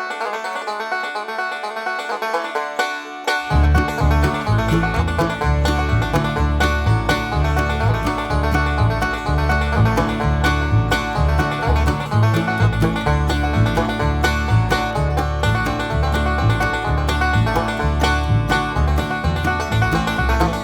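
Background music: an upbeat banjo-led bluegrass tune, with a low bass line coming in about three seconds in.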